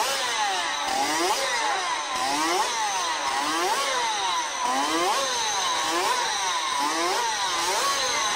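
Suzuki RP68 50 cc two-stroke racing engine revved up and down over and over in quick throttle blips, its high-pitched note swinging up and falling back more than once a second.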